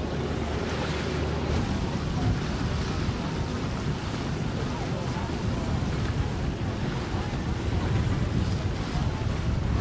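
A center-console boat's four outboard motors running as it cruises past, with wake water rushing and wind noise on the microphone.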